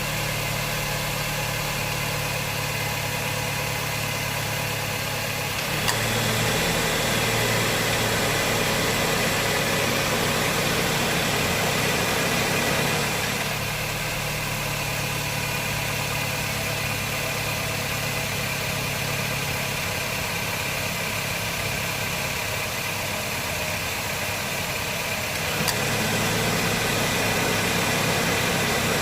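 Honda Jazz 1.5-litre four-cylinder engine idling with the A/C system on. A sharp click about six seconds in brings a louder, fuller running sound that eases back around thirteen seconds; a second click near the end brings it up again. This is the compressor clutch engaging and cycling.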